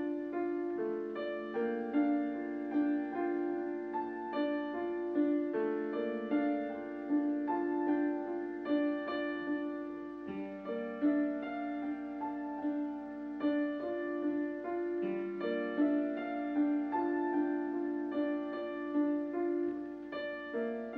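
Background piano music: a slow, gentle melody of separate notes over held lower notes.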